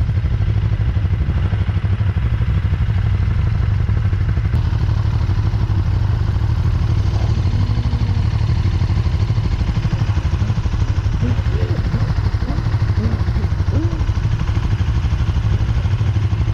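KTM 1290 Super Duke R's V-twin engine idling steadily, a rapid even low pulsing.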